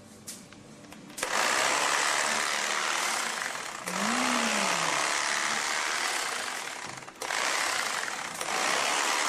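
Electric carving knife running, its motor-driven blades slicing through a roast. It starts about a second in and cuts out briefly a couple of seconds before the end.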